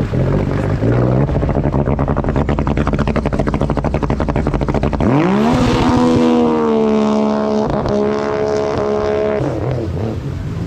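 Supercharged Sea-Doo RXP race jet ski engine running at low revs with a fast pulsing. About halfway through it revs up sharply in a holeshot launch and holds high rpm for several seconds, then eases off near the end. It pulls cleanly on its new ignition coils with no breaking up, though the rider says the pump is cavitating a little.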